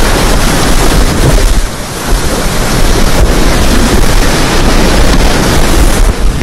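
Loud, steady rush of whitewater churning and splashing around a kayak as it drops down a steep rapid, heard right at the water's surface.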